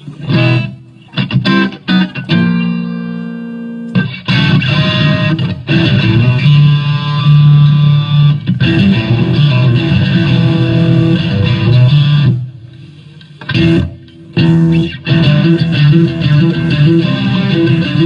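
A band playing an instrumental passage through the stage PA during a sound check, led by electric guitar with effects. It opens with short stabs and a held chord, then runs into a steady riff that breaks off about twelve seconds in and starts again with stabs.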